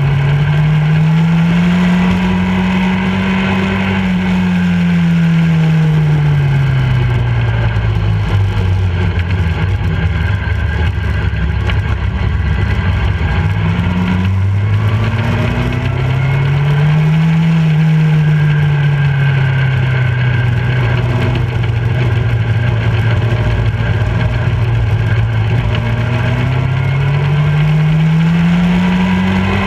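Motorcycle engine running at road speed, its pitch rising and falling slowly as the throttle is opened and eased through the bends, climbing again near the end, with steady wind noise underneath.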